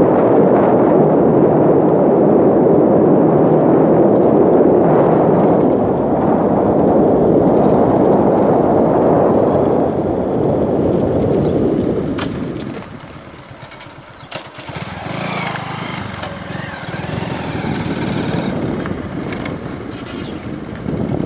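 Motorcycle running at road speed with steady, loud noise over the microphone. The sound drops sharply about two-thirds of the way through as the rider eases off, then carries on more quietly.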